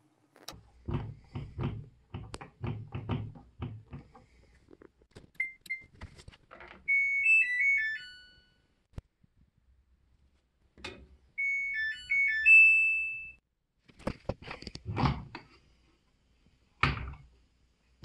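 Samsung front-loading washing machine: a series of thunks from the door, which is held by its lock, then a button beep, the machine's short electronic power-off tune, and a few seconds later its power-on tune. After that come several more clunks from the door as the lock releases.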